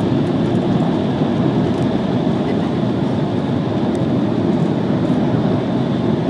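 Steady cabin noise of an Embraer E190 airliner in flight on approach: a deep, even rumble of its turbofan engines and airflow heard from a window seat, with a faint steady high whine over it.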